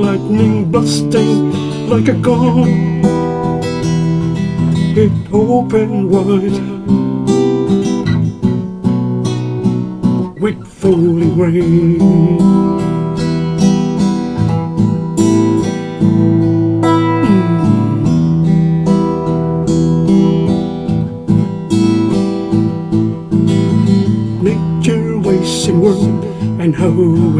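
Instrumental acoustic guitar passage: chords strummed and picked with melody notes, with a brief dip in loudness about ten seconds in.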